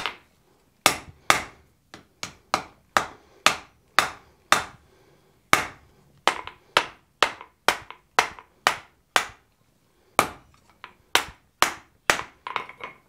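Hand hammer striking red-hot wrought iron on a steel anvil: sharp ringing blows about two a second, pausing briefly twice, with a few quicker, lighter taps near the end.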